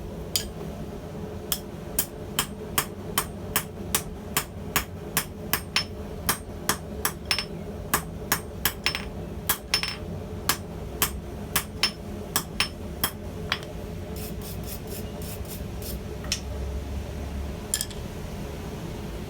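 Hand hammer striking hot steel on an anvil to forge a tong jaw, in a steady rhythm of about two to three blows a second. The blows stop about three-quarters of the way through, with one more strike near the end.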